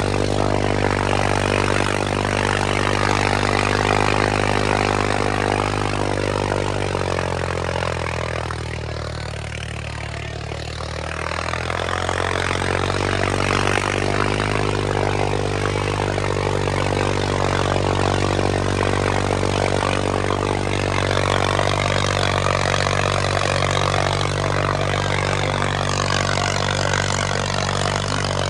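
A diesel tractor engine held at high revs. About eight seconds in its pitch and loudness sag, then climb back up about four seconds later and stay steady.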